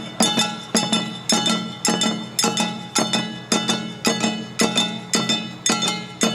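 Jangara nenbutsu dance music: small hand-held kane gongs struck with wooden mallets in a steady, ringing clang, about three strikes a second, with the dancers' taiko drums beneath.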